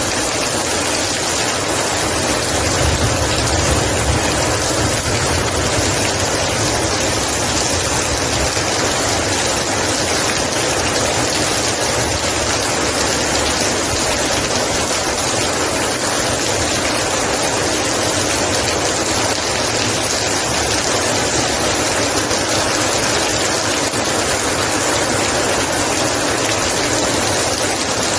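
Heavy rain pouring steadily as a dense, even hiss. A low rumble swells for a few seconds near the start.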